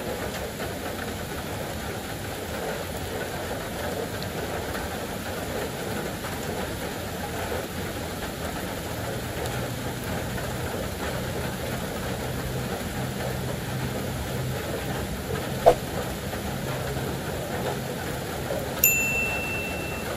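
Steady forest background noise, joined about halfway through by a low hum that comes and goes. A sharp click near the end, then a short high beep shortly before the end, as an on-screen subscribe button sound effect.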